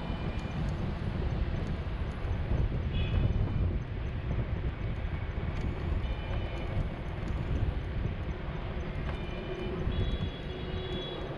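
Steady low rumble of outdoor street ambience, with a few short high-pitched chirps about three seconds in, around six seconds in, and near the end.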